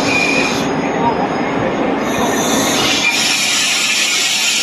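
Trenitalia regional train pulling into a station platform and braking, its wheels and brakes squealing. A brief high squeal comes near the start, and a hissing screech grows louder from about three seconds in as the cars slide past close by.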